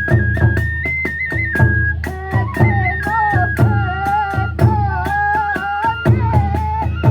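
Kagura festival music: a bamboo transverse flute plays a high, stepping melody over a steady beat of drums and clashing hand cymbals, about three to four strikes a second.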